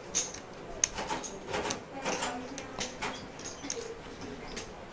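Light, irregular clicking and clacking of poker chips handled on the table, with one sharper click about a second in.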